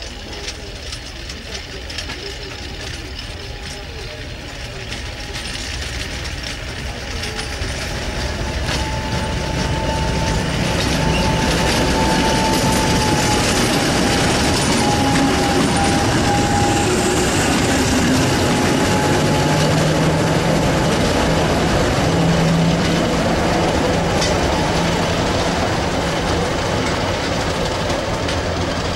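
British Rail Class 50 diesel locomotive D433, its English Electric 16-cylinder diesel engine running, drawing closer and passing at slow speed. The sound builds over the first ten seconds or so, stays loud with a steady whine while the locomotive is alongside, then eases slightly near the end as it moves away.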